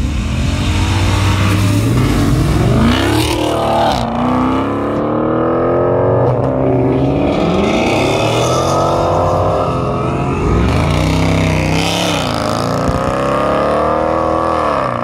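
Sports car engines accelerating hard. The engine note climbs and then drops back at each gear change, over and over, as the cars pull away through the gears.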